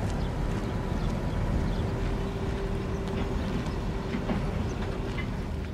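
Tugboat diesel engines running with a steady low rumble and a faint steady hum, with a few light ticks.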